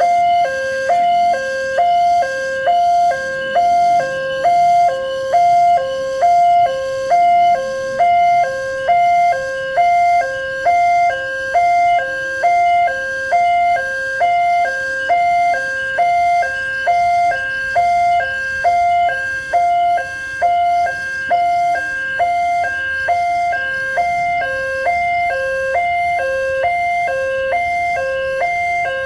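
Railway level-crossing warning alarm sounding at its fast tempo: an electronic two-tone chime repeating about one and a half times a second without a break.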